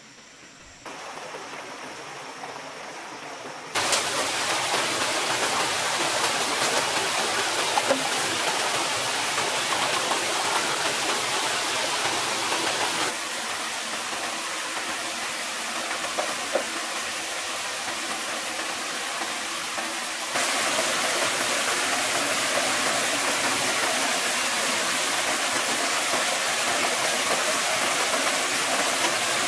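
A small rocky forest stream and waterfall rushing steadily. The level jumps up and down abruptly a few times.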